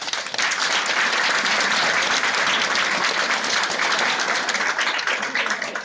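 Theatre audience applauding, a dense clatter of many hands that builds just after the start and eases slightly near the end, greeting the announcement of a company actor's competition win.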